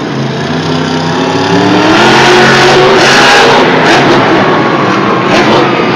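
Monster truck engine revving hard, its pitch climbing as the truck accelerates, over a dense roar of arena noise. Two sharp bangs cut through about four and five and a half seconds in.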